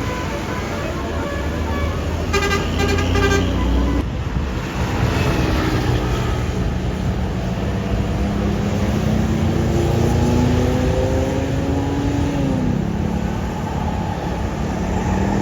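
Bus telolet horn, a multi-note musical air horn, playing a tune over the rumble of the bus engine and traffic: a quick run of repeated notes about two seconds in, then longer notes that slide up and down in pitch.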